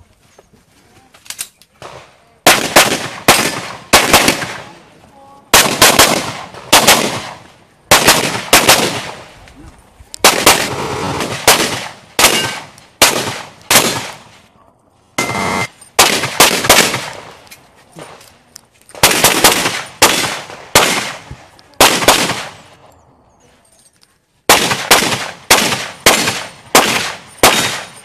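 Pistol shots fired in quick strings during a practical-shooting (IPSC) stage, with short pauses between strings as the shooter moves and reloads.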